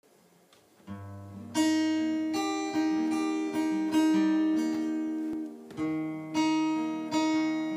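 Acoustic guitar with a capo playing chords, starting about a second in; each chord rings on until the next is struck, a new one every half second to a second.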